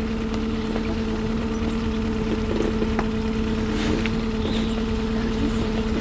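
Motorboat engine running at a steady, unchanging pitch.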